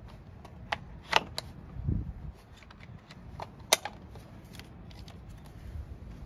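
Sharp plastic clicks and knocks from the engine cover and recoil starter housing of a STIHL FS250 brush cutter being handled and fitted, with two loud clicks about a second in and just before four seconds, a dull thump around two seconds, and lighter ticks after.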